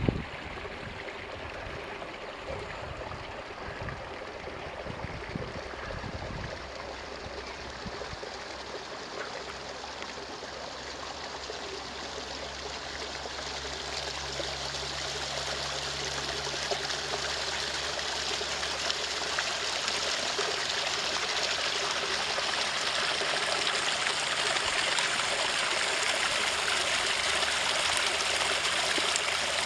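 Small brook trickling and babbling steadily, growing gradually louder toward the end. A few low rumbles come in the first several seconds.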